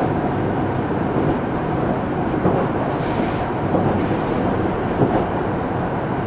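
Running noise inside a Meitetsu 300 series electric multiple unit (set 317F) travelling at speed: a steady rumble of wheels on rail and traction equipment. Two brief hisses come a little after three seconds in and again about a second later.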